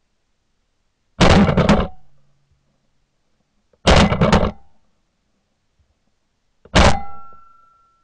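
Three shotgun shots about two and a half seconds apart, each a sharp blast that fades away within about a second.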